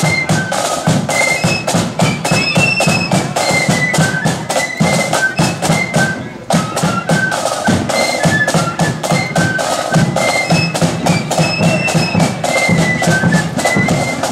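Blood-and-thunder marching flute band playing a tune, many flutes in unison over rapid snare drumming and a steady bass drum beat, with a short lull about six seconds in.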